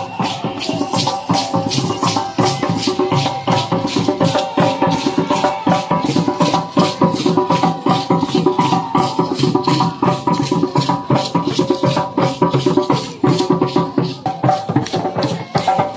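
Live traditional percussion music: shakers played in a steady rhythm of about three strokes a second, over held tones underneath.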